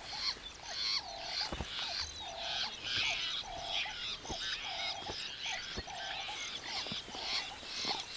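Grey-backed fiscals (shrikes) squawking and scolding at a leopard near their nest: harsh calls repeated about twice a second in a steady rhythm, with lower calls about once a second underneath.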